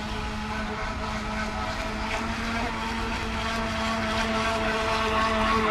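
Radio-controlled model boat's motor running with a steady whine of several held tones, growing a little louder toward the end, over a low rumble.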